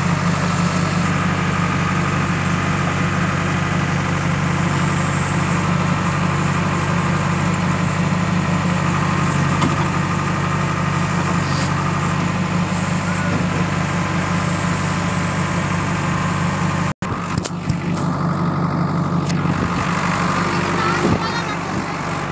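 Diesel engine of a JCB backhoe loader running steadily, heard from inside its cab as a constant low hum. About seventeen seconds in it cuts off abruptly, and lighter outdoor noise follows with a voice near the end.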